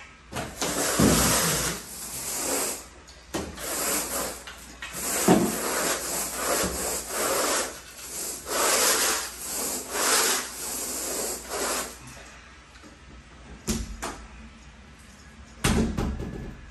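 Long-handled carpet rake dragged through carpet pile in a steady run of scraping strokes, about one a second, grooming the freshly cleaned carpet. The strokes stop around twelve seconds in, followed by a couple of short knocks.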